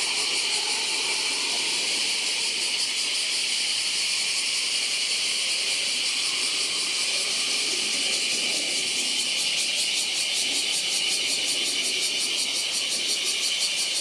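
Summer cicada chorus: a steady high-pitched hiss that takes on a fast, even pulsing about nine seconds in. Beneath it is the faint low rumble of a climbing Embraer regional jet.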